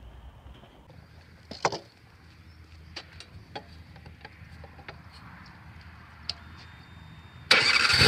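A few light clicks and knocks, then near the end the Wood-Mizer LX250 sawmill's engine starts abruptly and keeps running loud and steady.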